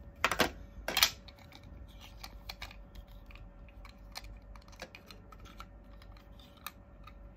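Hard plastic toy carrot knife being handled: two sharp plastic knocks in the first second, then a scatter of small light clicks as its parts are worked and the orange blade slides out.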